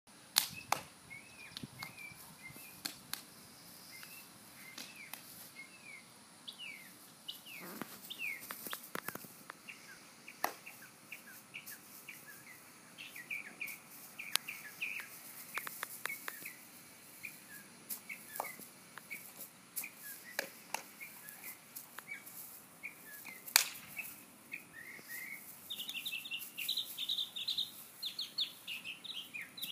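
Small birds chirping on and off, with a quick run of high chirps near the end. A few sharp knocks or taps are scattered through, the loudest about three-quarters of the way in.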